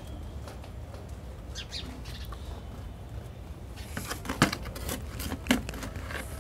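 Garden trowel scraping and working loose potting soil and dry leaves to cover a planted tuber, a flurry of scrapes and rustles with two sharp knocks near the end, over a steady low rumble.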